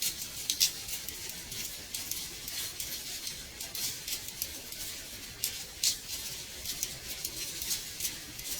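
Gentle rain on a window: a steady high hiss with many small, irregular taps of drops striking the glass.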